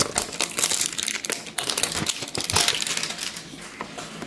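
Clear cellophane wrapper being peeled and torn off a cardboard trading-card box, a dense crinkling and crackling of plastic that eases off near the end.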